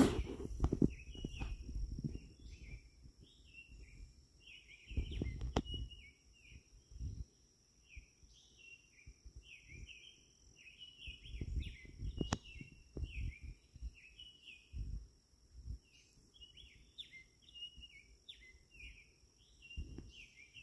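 A songbird twittering in short, rapid, repeated notes, over a steady high-pitched insect drone. Low rumbles on the microphone come and go, loudest about five seconds in and again around eleven to thirteen seconds.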